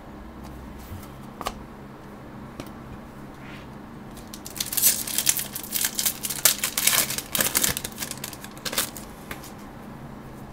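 Foil wrapper of a hockey card pack being torn open and crinkled: a dense run of rustling and crackling lasting about four seconds from near the middle, with a few light clicks of card handling before it.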